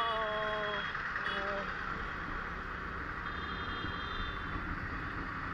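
Motorcycle riding through city traffic: steady engine and road noise with wind rushing over the microphone.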